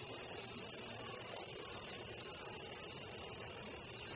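A steady, high-pitched insect chorus, the daytime drone of summer cicadas, running without a break.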